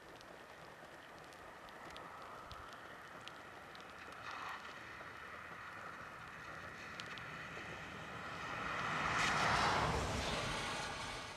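A distant engine drone that grows gradually, peaks about nine to ten seconds in, then fades away, like a machine passing by.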